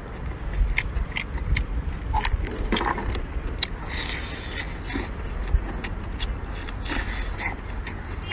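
A person eating lobster meat by hand: close chewing with a run of short clicks and smacks every third of a second or so, and two longer sucking slurps, one about four seconds in and one near seven seconds.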